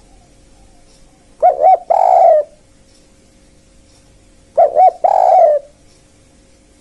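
Spotted dove (tekukur) calling twice, about three seconds apart: each call is two short coos followed by a longer coo.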